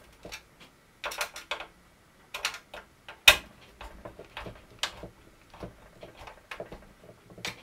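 Small screwdriver turning screws tight in a plastic model ship hull: scattered light clicks and scrapes, with one sharper click about three seconds in.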